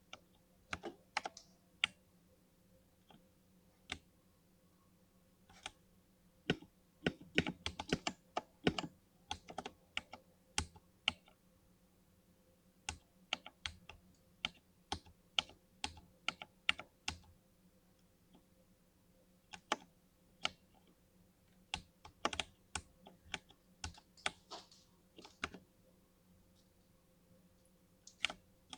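Tech Utopia mechanical gaming keyboard with linear switches being typed on: irregular bursts of sharp keystroke clicks with short pauses between them.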